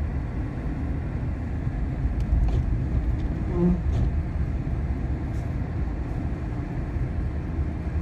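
Inside the cab of a GMC Sierra pickup truck: a steady low rumble of the engine and tyres driving over a snow-covered road.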